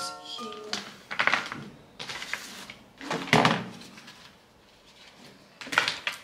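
Small objects being picked up, handled and set down on a desk: four short rustling, clattering bouts, the loudest just after three seconds in. A piano tune fades out in the first second.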